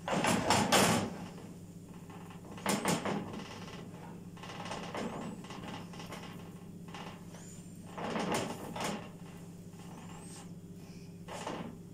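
Intermittent rubbing and scraping as a thin sheet of dough is pressed and spread by hand in a non-stick frying pan on a gas stove's grate, with the loudest burst at the start. A steady low hum runs underneath.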